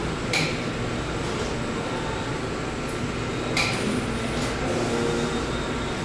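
Café room ambience: a steady low background hum, broken twice, about three seconds apart, by a short sharp clink.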